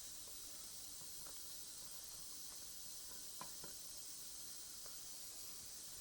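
Steady faint hiss with a few light clicks of small metal parts and tools being handled on the engine block, two of them close together about three and a half seconds in.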